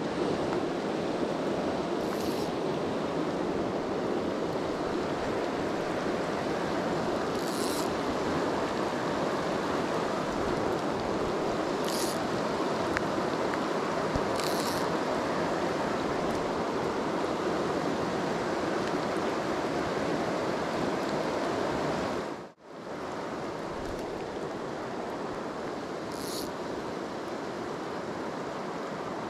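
Steady rush of a small river flowing over shallow riffles. About two-thirds of the way through it cuts out for an instant and comes back a little quieter. A few short high hisses sound over it now and then.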